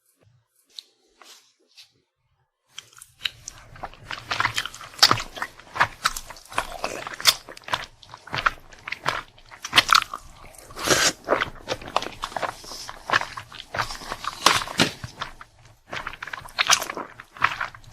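Close-miked eating sounds: biting and chewing with crisp crunches. After a near-quiet first few seconds with a few faint clicks, the chewing starts about three seconds in and runs on in a dense, irregular rhythm.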